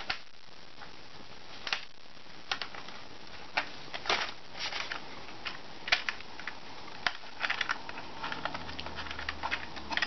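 Irregular light clicks, taps and rustles of small plastic parts being handled and snapped onto a foam RC plane's landing gear, with a quicker run of clicks and a faint low hum near the end.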